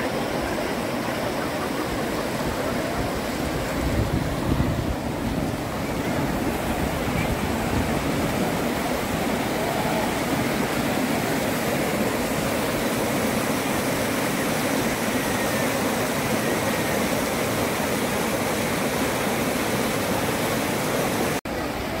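Water rushing and churning over rock slabs and through a narrow rock channel in a shallow cascade, a steady loud rush. It breaks off for an instant near the end.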